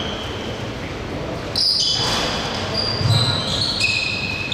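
Basketball game play on an indoor court: a ball bouncing with low thuds, the strongest about three seconds in, and sneakers squeaking in short high squeaks on the hardwood, heard in a large echoing gym.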